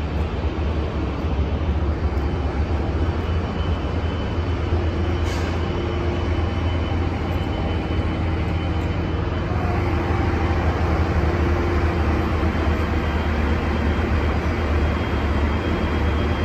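Steady low rumble of an idling diesel train engine, with a faint even hum over it.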